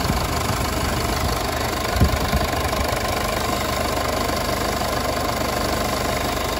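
Mercedes-Benz GLK250 BlueTec's four-cylinder turbodiesel idling steadily, heard close up in the engine bay with its even diesel clatter and a faint steady whine. One short knock about two seconds in.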